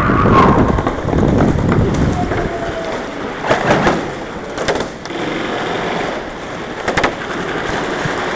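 Airsoft guns firing: short clusters of sharp pops about three and a half seconds in, near five seconds, and again about seven seconds in, over a steady noisy background.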